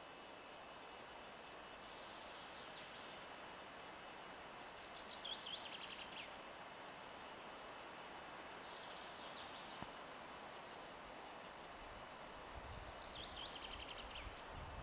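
Dunnock singing: four short phrases of fast, high, jangling warble, each about a second and a half long, the second and last louder than the other two.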